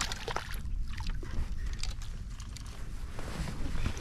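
Handling noise aboard a kayak while a striped bass is landed: scattered small clicks and knocks of the landing net and gear being picked up and dipped into the water, over a low steady rumble.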